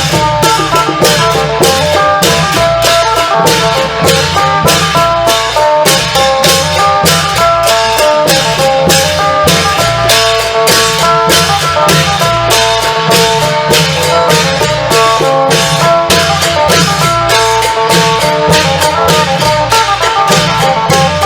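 Isan long-drum (klong yao) ensemble music: a phin lute plays a quick plucked melody over a steady, driving beat of drums and percussion.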